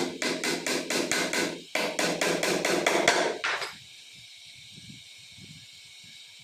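Quick hammer blows, about five a second, in two runs with a brief pause near the middle, stopping shortly before 4 s.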